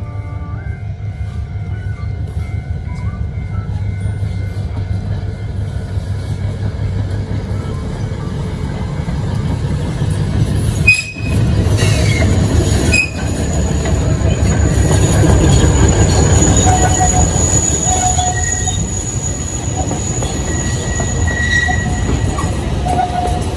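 Train running on the rails: a steady low rumble of the wheels, with thin high squealing tones from the wheels on the track in the second half. The sound drops out briefly about halfway through.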